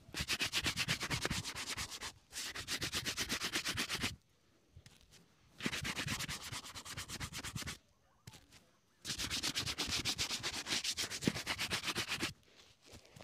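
A hand-held shoe brush scrubs fast back and forth over a leather boot, working polish into it, at about ten strokes a second. The strokes come in three spells: a long one at the start with a brief break, a short one about halfway, and another for roughly three seconds near the end, with pauses between.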